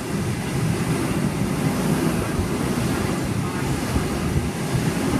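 Sydney Trains Waratah double-deck electric train passing along the platform close by: a steady, loud rumble of wheels on the rails.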